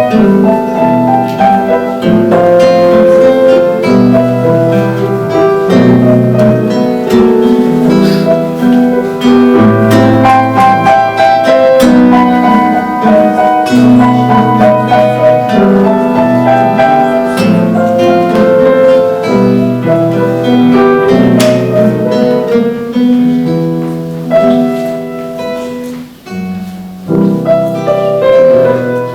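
Classical guitar and piano playing a waltz together. The music briefly grows quieter near the end, then picks up again.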